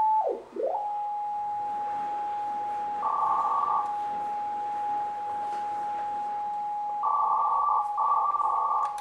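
Loudspeaker of an AEG Telefunken E800/2 VLF-HF receiver giving a whistling beat note as it is tuned across a VLF signal: the pitch dips down and swings back up, then settles into a steady whistle. Two stretches of rougher, multi-tone signal sound over the whistle, one about three seconds in and a longer one near the end.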